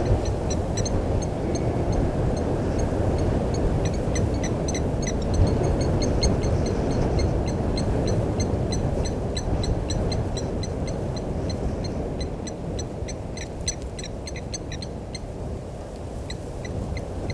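Outdoor waterhole ambience: a steady low rumble under many short, high, rapidly repeated chirps from small birds, which thin out near the end.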